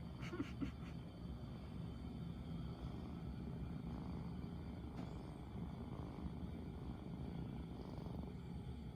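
Short-legged Munchkin kitten purring steadily, a soft continuous rumble.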